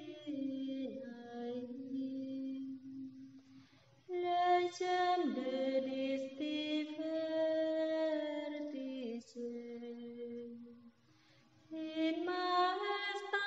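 Female voices singing a slow sacred chant in long, held notes that step from pitch to pitch, with two short pauses between phrases.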